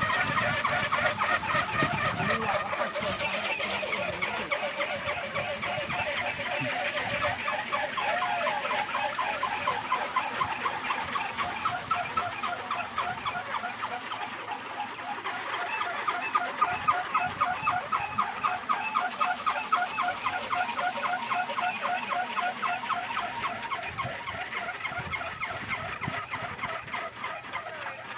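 Wooden kolecer (Sundanese wind propeller) spinning in strong wind: a rapid, pulsing, pitched whir. It grows louder about halfway through and fades near the end.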